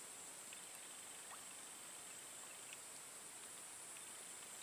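Faint steady high-pitched insect buzz from the swamp, with a few tiny faint ticks.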